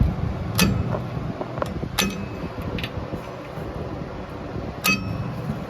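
Brake rotor clinking against the hub and parking brake shoes as it is worked onto the hub: several sharp metallic clinks, each ringing briefly, over a steady low background hum.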